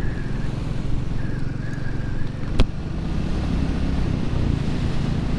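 Royal Enfield Classic 350's single-cylinder engine running steadily while the motorcycle is ridden, under a steady haze of road and wind noise. A single sharp click comes about two and a half seconds in.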